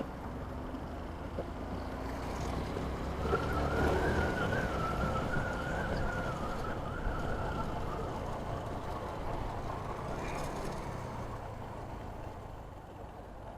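Road and wind noise from a motorcycle ride through city traffic, with a wavering high tone rising over it for a few seconds near the middle.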